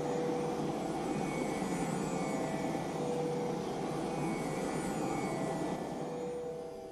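A steady engine-like roar carrying a few steady tones, which dies down near the end.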